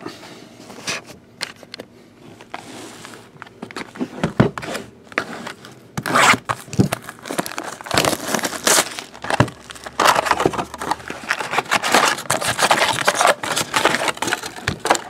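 Plastic shrink wrap crinkling and tearing as a trading card box is unwrapped, then foil card packs crinkling as they are handled, louder from about six seconds in.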